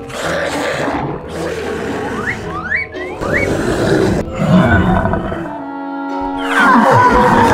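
Cartoon monster roar sound effect over background music, with a few quick rising sweeps in pitch in the middle and a falling sweep near the end.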